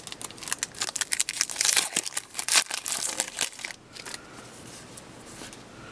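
Trading cards and their plastic wrappers or sleeves being handled: crackly crinkling and rustling for about four seconds, then it grows quieter.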